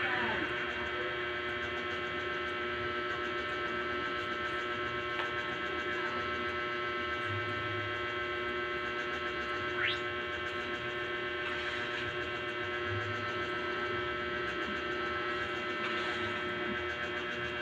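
Steady electric hum from a running electric stand fan's motor, with a short rising chirp about ten seconds in.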